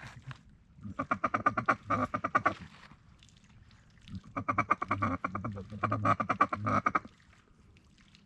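A hunter's duck call blown in two long runs of rapid, chattering quacks, the first about a second in and the second from about four to seven seconds in, calling to incoming ducks.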